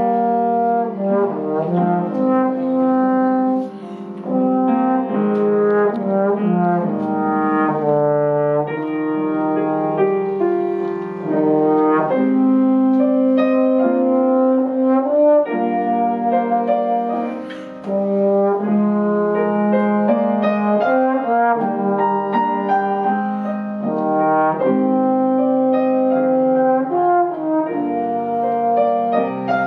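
Trombone playing a slow solo melody of held notes in phrases, with piano accompaniment.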